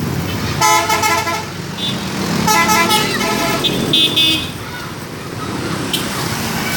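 Telolet horns, multi-tone musical vehicle horns, playing three short melodic blasts of about half a second to a second each in the first four and a half seconds, the last one higher-pitched. After that only a steadier background noise.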